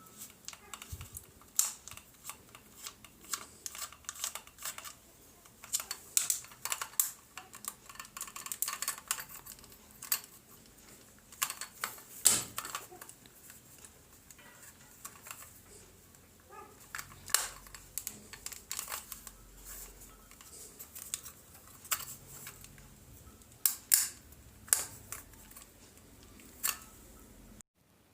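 Plastic casing of a rechargeable LED torch being unscrewed and prised open by hand: irregular small clicks, taps and scrapes of plastic parts and a small tool, stopping abruptly near the end.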